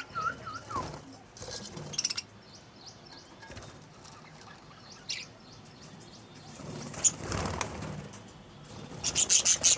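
Caged lovebirds and budgerigars chirping, with short bursts of wing flapping and a loud rapid flurry of wingbeats near the end.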